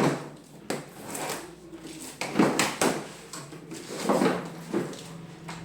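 PTMT plastic bathroom cabinet being handled, its door or drawer opened and shut: a run of plastic clicks and knocks with short sliding scrapes.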